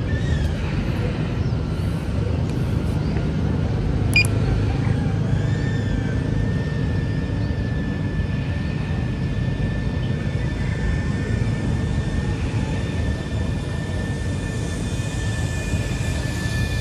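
DJI Avata FPV drone's propellers running with a steady high whine over a heavy rumble of wind, and a single sharp click about four seconds in.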